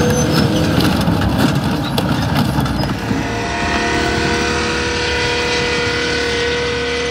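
A heavy vehicle engine running. It is rough and noisy for the first few seconds, then settles into a steady pitched drone.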